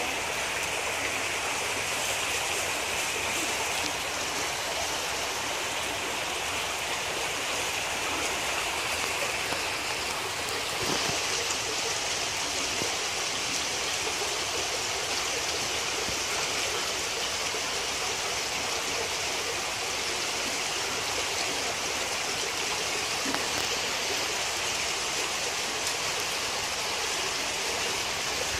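Creek water flowing: a steady rush of running water, its hiss turning brighter about eleven seconds in.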